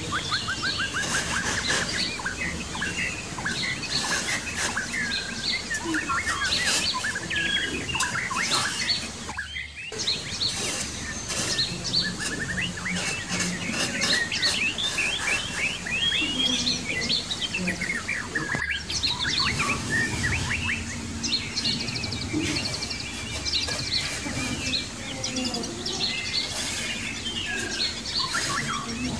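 Many small birds chirping and twittering continuously in quick, overlapping calls, with two brief breaks about ten and nineteen seconds in.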